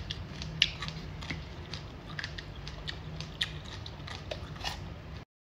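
Close-up crunching of someone chewing crisp raw vegetable, irregular crisp crunches a few times a second; it cuts off suddenly near the end.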